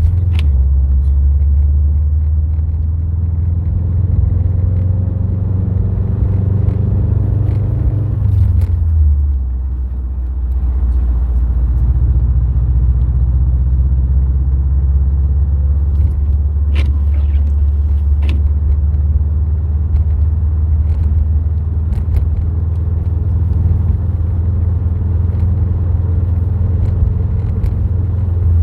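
Subaru WRX STI's turbocharged flat-four engine and road noise while driving, a steady low rumble. About eight seconds in the engine note drops, as when easing off or shifting, then holds steady. A few faint ticks come around the middle.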